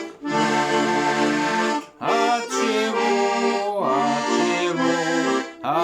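Tula 301M garmon in F major playing an instrumental passage without voice: held bass-and-chord notes under a moving melody, in short phrases broken by brief gaps about every two seconds.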